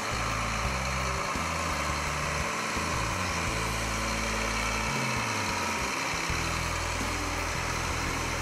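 Case IH STX385 QuadTrac tractor's diesel engine running steadily as the tracked tractor moves.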